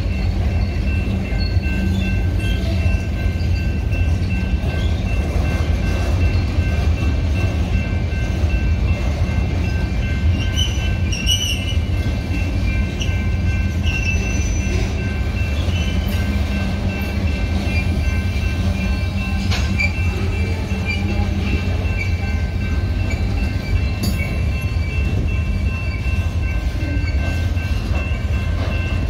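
Freight train of boxcars rolling past at close range: a steady low rumble of wheels on rail, with steady high tones running over it.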